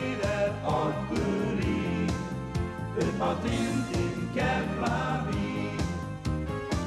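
A band song: a man sings over electric bass guitar and a steady drum beat.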